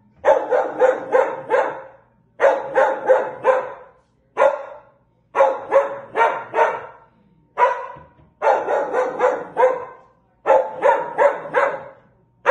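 A shaggy black-and-white dog barking in repeated quick runs of several barks each, with short pauses between, aimed at a window washer on the other side of the glass.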